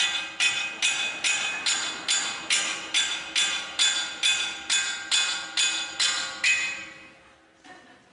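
Steady series of ringing percussive strikes, about two and a half a second, each stroke a bright pitched ring like a struck bell or metal bar; the strikes stop about six and a half seconds in and the ringing dies away.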